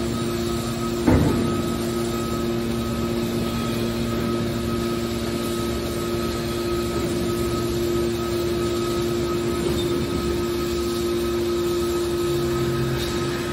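Hydraulic iron scrap baler running with a steady hum from its power unit, and one sharp loud bang about a second in.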